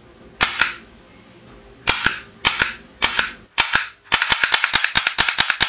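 Plastic toy cowboy revolver's mechanism clicking as it is worked: a few sharp single snaps spaced about half a second to a second and a half apart, then from about four seconds in a fast, even run of clicks, about eight a second.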